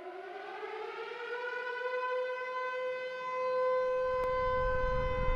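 A siren winding up: one tone rising in pitch over about two seconds, then holding steady. A low rumble comes in about four seconds in, with a single click.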